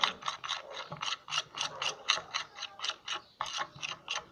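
Spoon stirring thick clear slime in a glass bowl, a quick even run of sticky clicks and small pops, about four a second.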